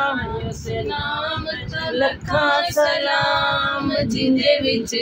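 Women's voices singing a Punjabi naat unaccompanied, in drawn-out, held melodic lines.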